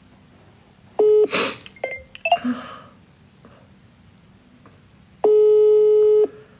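Phone ringing tone of a WhatsApp call waiting to be answered: a steady beep-tone, once briefly about a second in and once for a full second near the end, with a few short electronic blips between.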